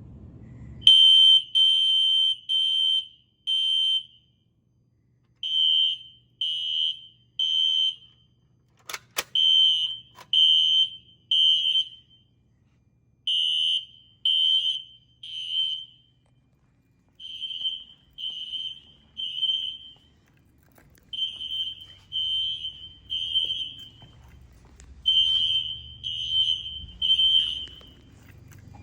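Fire alarm horn on a Fire-Lite ES-200X system sounding a high, steady tone in groups of three short blasts followed by a pause, repeating about every four seconds. This is the temporal-three evacuation pattern of an alarm in progress. A single sharp click comes about nine seconds in.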